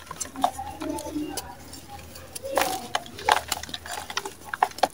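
Dry chunks of sand cement crumbled between the fingers: irregular, gritty crunches and crackles as they break apart, with loose grains falling into a clay bowl.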